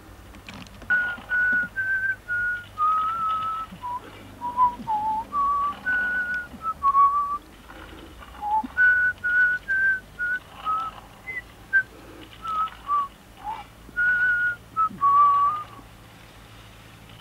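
A person whistling a tune: a string of short, clear notes stepping up and down in pitch, with a short pause about halfway through.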